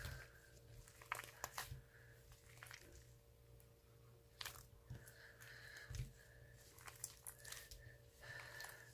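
Slime being squished and kneaded by hand, giving faint, irregular clicks, pops and crackles.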